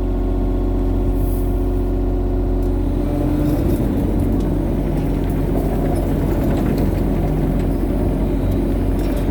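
Excavator engine running steadily. About three and a half seconds in, its sound turns rougher and fuller.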